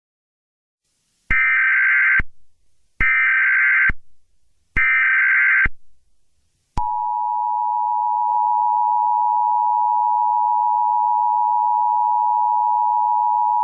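Emergency Alert System tones: three short bursts of SAME header data, each under a second and about a second and a half apart, then the steady two-tone EAS attention signal starting about seven seconds in.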